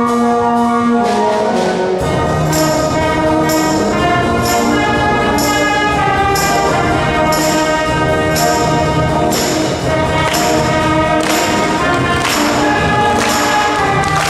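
School band playing a brass-led piece: held chords at first, then a steady beat of percussion strokes comes in about two seconds in under the moving brass parts.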